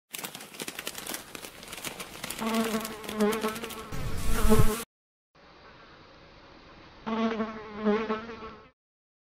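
Insect buzzing with a wavering pitch that swells and dips, over crackly rustling of a bag being handled; a loud low rumble comes just before everything cuts off suddenly about five seconds in. After a short gap the buzzing returns, thinner, swelling twice before it stops near the end.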